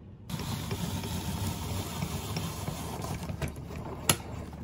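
Hand-cranked apple peeler-corer-slicer being turned with its peeling blade off: a steady grinding crunch as the apple is cored and spiral-sliced along the threaded shaft, with a sharp click near the end.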